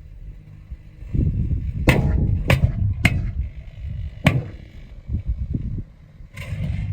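Sharp cracks and snaps from inside a running microwave oven loaded with metal and a taped explosive device: four separate cracks and then a short hissing burst, over a low rumble.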